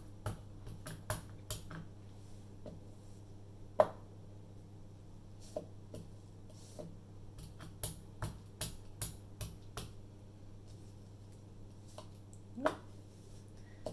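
Hand brayer being inked on a pad and rolled over embossed cardstock: irregular sharp clicks and taps, with two louder squeaky clicks, one about four seconds in and one near the end.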